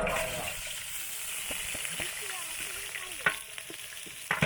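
Food hitting hot oil in a large cooking pot and sizzling, starting suddenly with a loud hiss that then eases to a steady sizzle. A ladle knocks against the pot a couple of times near the end while it is stirred.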